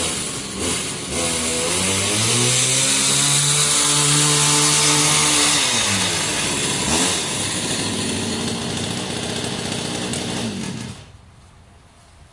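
Two-stroke chainsaw engine driving a motorized wheelbarrow. It revs up, holds high speed for a few seconds and drops back, revs again at a steadier, lower speed, then cuts off suddenly near the end.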